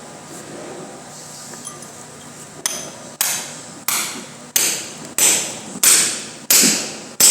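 A hand tool striking repeatedly and evenly, about one and a half blows a second, starting about two and a half seconds in.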